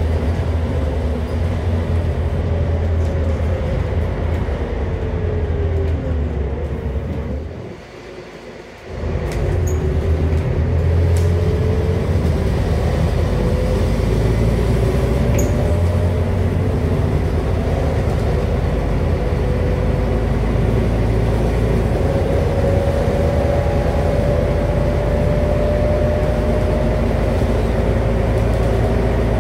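Scania N230UD double-decker bus heard from inside while under way. Its Scania DC09 five-cylinder diesel and ZF Ecomat automatic driveline give a low drone with a whine that falls in pitch over the first several seconds. The engine note drops away briefly about eight seconds in, then returns and the whine rises slowly and steadily as the bus picks up speed.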